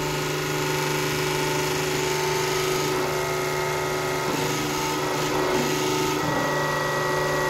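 Bushing press machine running with a steady motor hum while a new rear axle bushing is pressed in; its tone shifts slightly about four and six seconds in.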